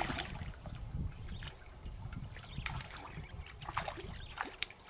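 A hooked snakehead thrashing at the surface of a muddy stream: irregular splashes over a low rumble.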